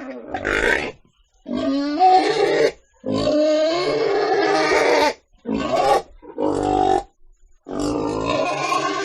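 Pig calling: a series of about six loud, pitched grunts and squeals, each from half a second to two seconds long, with short gaps between them.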